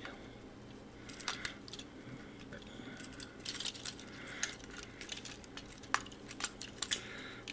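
Hard plastic parts of a Transformers robot figure clicking and rattling in the hands as its torso pieces are twisted and folded during transformation, with a few sharper clicks, the clearest about six seconds in.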